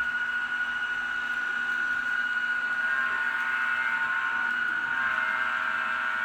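The turbine whine of a Rapido N-scale Amtrak RTL Turboliner's ESU sound decoder, played through the model's small speaker as the train runs in turbo mode. It is a steady high whine with a lower hum under it, and a further tone joins about halfway through.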